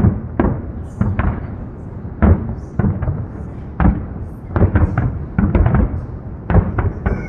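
Fireworks bursting in an irregular series of bangs, some single and some in quick clusters of two or three.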